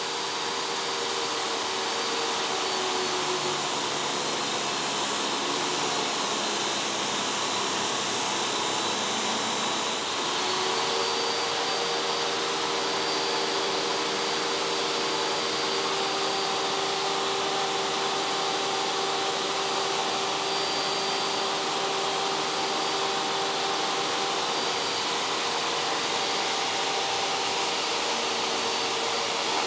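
DeWalt 7492 table saw's 2 kW motor spinning a sanding disc, with a dust extractor running, as a wood piece is ground against the disc: a steady whirring hum. About ten seconds in, the pitch of the hum shifts.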